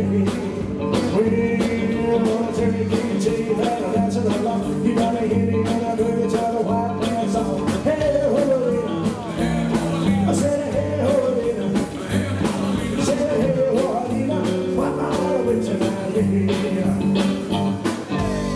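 Live rockabilly band playing: double bass, drums and electric guitar driving a fast, steady beat. The song ends on a held final chord near the end.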